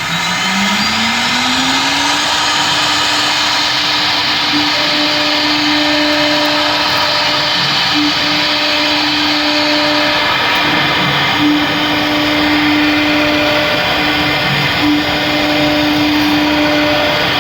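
CNC router spindle spinning up, its whine rising in pitch for about the first two seconds and then holding at a steady high pitch. It then runs on over a loud hiss of cutting noise, with brief dips in the tone as it mills a thick black HDPE sheet.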